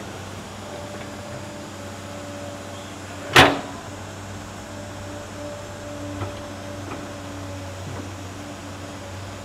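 Tracked hydraulic excavator's diesel engine running steadily, with a droning hum and held tones as the arm reaches down into the pit. A single sharp bang about three and a half seconds in is the loudest sound, followed by a few faint knocks.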